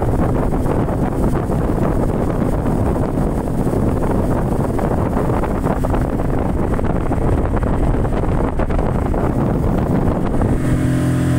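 Speedboat under way, its engine running beneath loud wind buffeting on the microphone. About ten seconds in, a steady pitched hum comes in over the noise.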